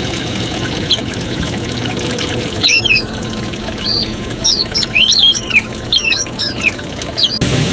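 AI-generated sound effect of birds chirping and squawking in quick, repeated calls over a steady background hiss. About 7.4 s in it cuts off sharply and a louder, different sound takes over.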